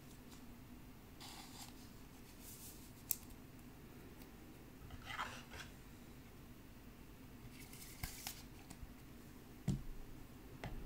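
Scissors snipping a soft plastic trading-card sleeve, and cards being handled in plastic: a few short scraping swishes and light clicks, all quiet.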